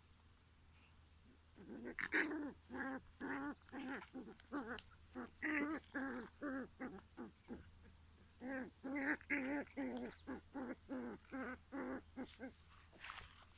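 A dog vocalising in two runs of short, pitched calls, about three a second, with a brief pause in between.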